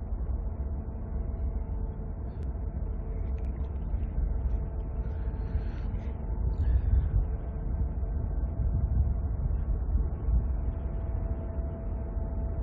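Lake freighter Paul R. Tregurtha's diesel engines heard as a steady low rumble with a faint droning hum over it.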